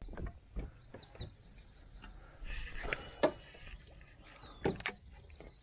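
Faint bird chirps with scattered light clicks and knocks, the sharpest about three seconds in and twice near the end.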